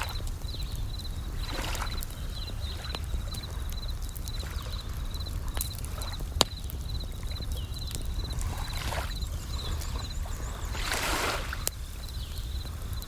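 Bell crickets trilling in a steady run of short, high chirps over a crackling wood fire with scattered sharp pops, the loudest about six seconds in. Waves wash in every few seconds, the biggest swell about eleven seconds in.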